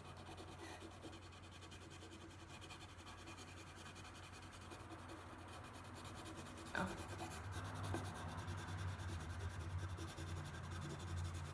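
Colored pencil scratching and rubbing over watercolor-painted paper as it colors and blends. A light knock comes about seven seconds in, after which the scratching gets louder.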